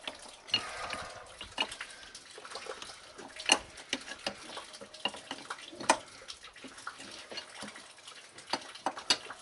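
Hand ratchet with an extension working a fitting on a hydro boost power-steering line: irregular clicking and metal clinks of the tool, the sharpest about three and a half, six and nine seconds in.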